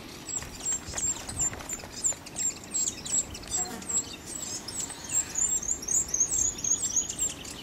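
A small bird calling: a steady string of short, high, falling chirps, about three or four a second, quickening into a denser run about five to seven seconds in.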